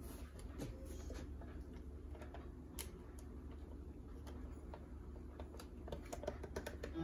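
Faint scattered clicks and light plastic taps as a blender jar's lid is fitted and handled, over a low steady hum.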